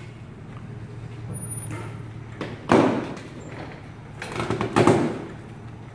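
A boat on its trailer being moved into a garage: a steady low hum, with two louder bursts of rumbling noise about three seconds and about four and a half seconds in.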